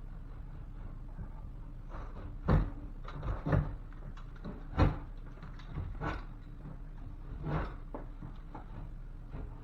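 A series of irregular knocks and thumps, about six of them, the loudest two about two and a half and five seconds in, over a steady low hum.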